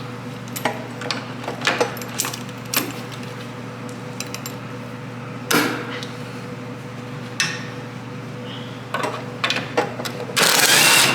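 Scattered metal clinks and knocks of hand tools on the bumper's mounting studs and nuts, over a steady hum. Near the end comes a loud hiss lasting under a second.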